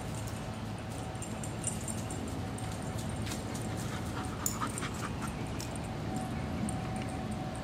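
Dogs at play, one giving a few short high-pitched whines about halfway through, over steady background noise.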